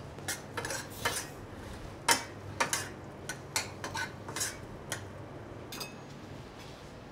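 Spoon stirring thick mole sauce in a small stainless-steel saucepan, clinking and scraping irregularly against the pan, over a low steady hum. The clinks stop a second or so before the end.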